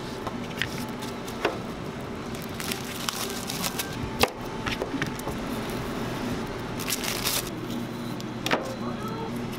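Chef's knife slicing a plastic-wrapped cucumber on a plastic cutting board: a few sharp, irregularly spaced knocks of the blade through the cucumber onto the board, with a brief crinkle of the plastic wrap, over a steady background hum.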